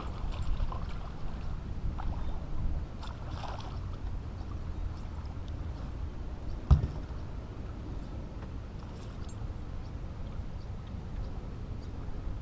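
Low steady rumble of wind on the microphone aboard a small fishing boat, with light clicks and rattles of handling on the deck and one sharp knock about seven seconds in.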